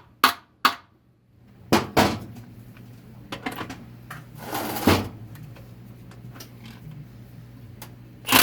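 Metal tools and transmission parts clacking and knocking as bolts are worked out of a 4L60-E transmission case: several sharp clacks in the first two seconds, a half-second rasp about halfway, and a few lighter clicks later.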